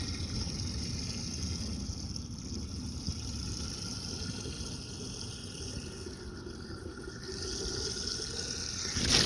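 Water running steadily into a water jug as it is filled, growing a little louder near the end.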